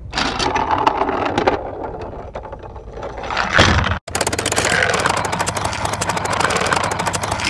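Toy train engines rolling and rattling along a plastic play-set track. About halfway through, the sound cuts and a fast, even run of clicks follows, with a low hum underneath.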